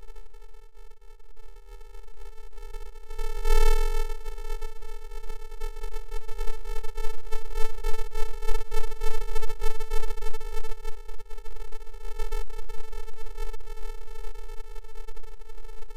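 A steady buzzing tone held at one pitch with a stack of overtones, pulsing faintly and swelling briefly about three and a half seconds in.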